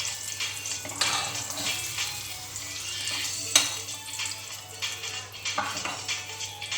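Carrot pieces frying in hot oil with a steady sizzle, while a utensil scrapes and clinks against the pan as they are scooped out; one sharp clink about three and a half seconds in stands out.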